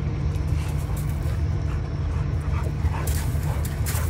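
American bully dogs giving a few short cries in the second half, over a steady low rumble.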